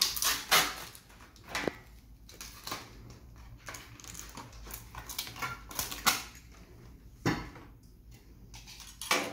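A cardboard multipack of butane gas canisters being handled and opened and a metal canister pulled out: irregular rustling of the packaging with scattered sharp clicks and knocks.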